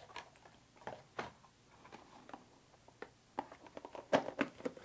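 Light handling noises from a small cardboard box and its paper insert being turned over in the hands: scattered taps and rustles, coming thicker and louder near the end.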